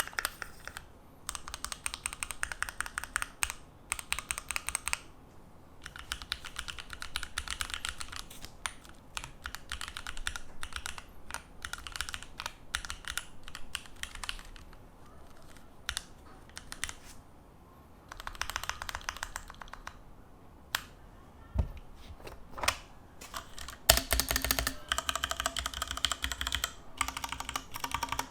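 Typing on a Keychron Q2 mechanical keyboard: bursts of rapid key clacks separated by short pauses, with the loudest run near the end.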